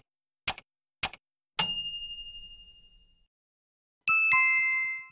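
Three short ticks about half a second apart, then a bell-like ding that rings out for over a second. Near the end come two chime strikes in quick succession, lower in pitch, ringing with a slight flutter.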